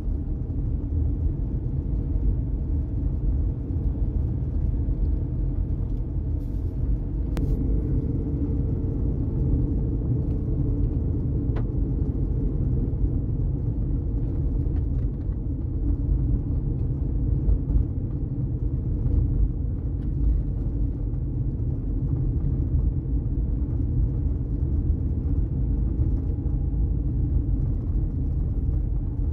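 Steady low rumble of a car on the move: road and engine noise, with a couple of faint clicks.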